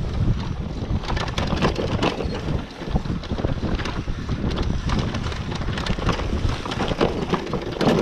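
Wind buffeting the microphone over the rumble and rattle of a loaded touring bicycle rolling down a bumpy grass track, with frequent clicks and knocks from the frame and luggage.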